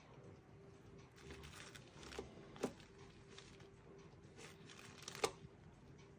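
Faint handling sounds of a gloved hand working over a silicone doll on paper: soft rustling with two sharp clicks a couple of seconds apart, over a steady faint hum.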